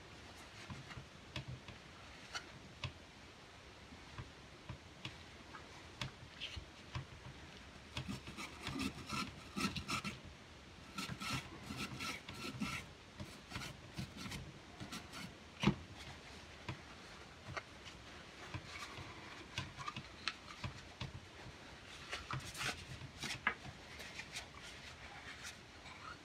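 Brush scrubbing and rubbing on the stainless-steel parts of a Bond Arms derringer during cleaning, in irregular scratchy strokes with scattered light clicks and taps as the metal is handled. One sharper tap comes about two-thirds of the way through.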